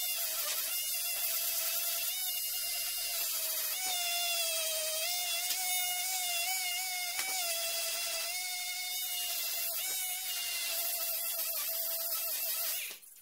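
Small handheld electric sander running on a pine block, a steady high whine with a hiss of abrasive on wood; the pitch wavers slightly as it is pressed and moved. It switches off just before the end.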